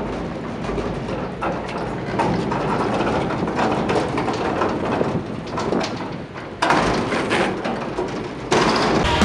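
Longboard wheels rolling on asphalt: a rough, steady rumble with small ticks, growing louder about two-thirds of the way in as the board comes close.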